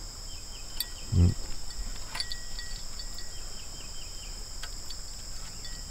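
Steady, high-pitched chorus of insects, with a short grunt-like voice sound about a second in and a few faint clicks.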